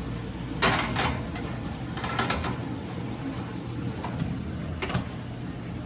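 Clicks and clatter of an air fryer basket and kitchen utensils being handled as pork chops go into the air fryer. There are a few sharp knocks about half a second in, around two seconds in, and near the end.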